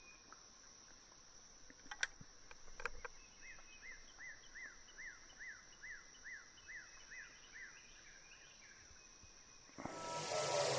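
Steady high-pitched insect drone, with a bird calling a run of about a dozen quick down-slurred whistles, close to three a second; two sharp clicks come about two and three seconds in. Electronic music starts abruptly near the end.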